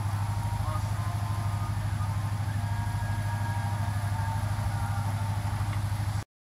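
Boat engine running steadily at low speed, a deep, evenly pulsing hum; it cuts off abruptly near the end.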